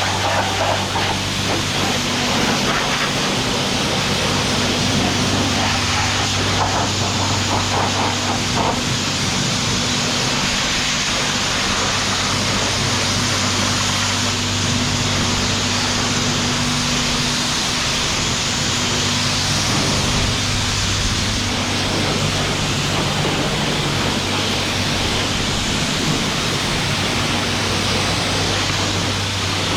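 Pressure washer spraying the e-bike: a steady hiss of the water jet over a steady low hum from the machine's motor.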